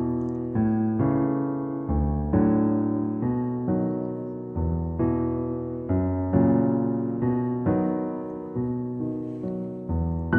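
Background music: a slow, gentle piano piece of struck notes and chords, each note sounding and fading before the next.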